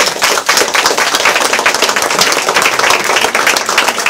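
A small group of people applauding, many hands clapping close by.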